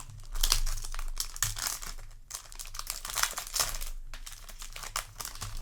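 Foil trading-card booster pack wrapper crinkling as it is handled, in two stretches of dense crackling with a short break about two seconds in.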